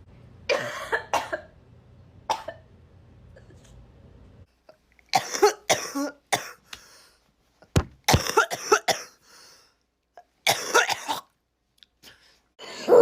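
Bouts of coughing, several short harsh coughs in each, with some throat clearing. A low background hum under the first coughs stops about four and a half seconds in.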